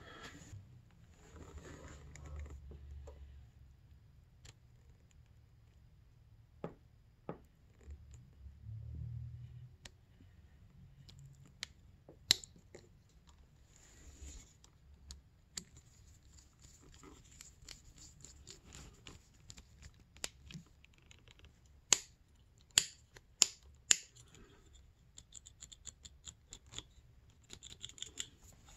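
Small plastic clicks and handling noise from an Arctic Cat throttle/stop switch being fitted back together by hand, its greased contacts seated in the housing. Scattered light clicks, with a quick run of louder snaps about three-quarters of the way in.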